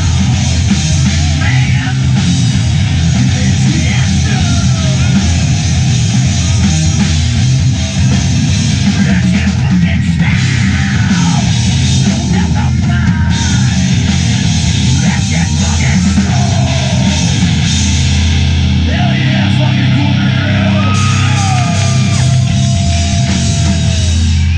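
Live rock band playing loud, distorted heavy rock on electric guitars and drums, with sliding pitched lines over the steady wall of sound.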